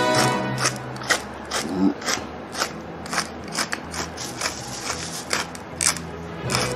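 Hand-twisted pepper grinder crunching peppercorns in short repeated turns, about two to three sharp gritty clicks a second.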